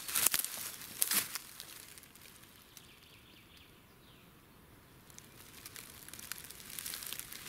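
Rustling and crackling of dry grass and leaf litter, with a few louder crunches in the first second or so, quieter in the middle, then small crackles again near the end.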